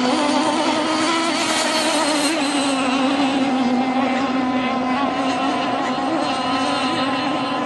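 Radio-controlled model speedboat running at speed across the water: a steady high-pitched motor buzz that wavers slightly in pitch.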